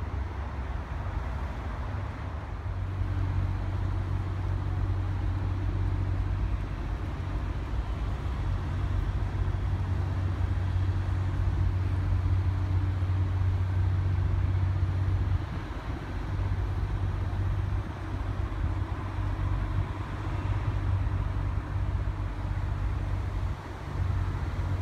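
Low, steady drone of motor traffic, dipping briefly about halfway through and again near the end.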